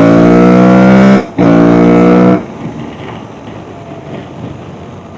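Aprilia Tuareg 660 parallel-twin engine through an Akrapovic full exhaust system, pulling hard with its pitch rising. About a second in there is a brief break, and it picks up again at a lower pitch, as after an upshift. Near halfway the throttle closes and the sound drops to a much quieter rushing noise.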